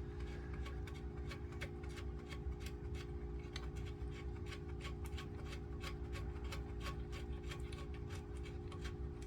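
A run of sharp, unevenly spaced clicks, a few a second, from hand tools working on a BSA A65 engine's primary chain tensioner, over a steady low hum.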